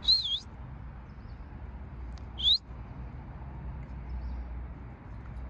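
A dog's squeaky ball squeaking twice as it is squeezed: a short wavering squeak at the start and a rising squeak about two and a half seconds in. A faint low hum runs underneath.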